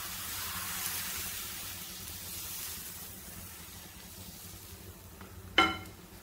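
Crepe batter sizzling as it is poured from a ladle into a hot buttered nonstick frying pan, the sizzle fading over the first few seconds as the batter spreads. A short, sharp ringing clink sounds near the end.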